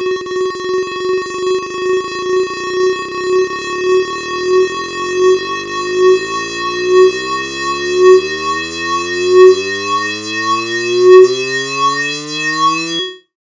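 A Thirty Dollar Website browser sound sequencer looping one block sound with the tempo raised every loop, so the repeats run together into a steady buzzing tone. The tone wavers and swells in regular beats that grow louder and further apart, and it cuts off suddenly near the end.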